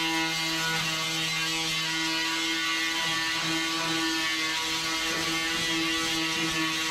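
Angle grinder with an abrasive disc running steadily against the painted steel door panel of a truck cab, stripping paint: a steady motor whine over a gritty grinding hiss.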